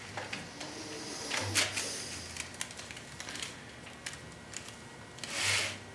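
Scattered light clicks and rustles from hand work on a broom held in a screw-type hand broom press: needle, twine and broomcorn being handled during stitching. A longer rushing noise comes about five and a half seconds in.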